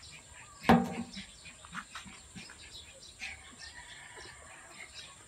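Backyard fowl clucking and birds chirping repeatedly, with one loud sharp knock under a second in, the loudest sound, and a longer held call a little past the middle.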